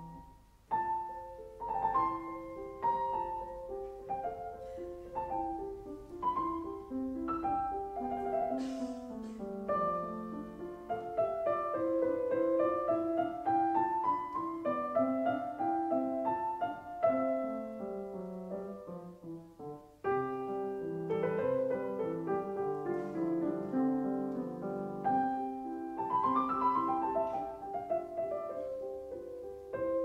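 Gentle solo piano music, runs of notes rising and falling, with a short break about twenty seconds in before it picks up again.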